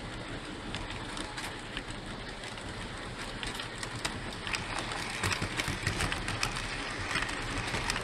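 Three-rail O-gauge model trains running on tubular track: a steady rumble of motors and wheels with rapid clicking as the wheels cross the rail joints. The sound grows louder from about halfway through as a train of passenger coaches passes close by.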